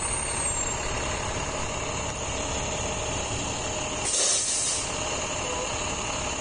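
Large diesel engine idling steadily, with a short hiss of air-brake release about four seconds in.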